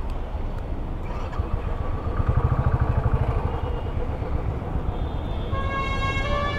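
Motorcycle engine running at low speed, with a rapid low pulsing for a second or so in the middle as it pulls away. Music with long held notes comes in near the end.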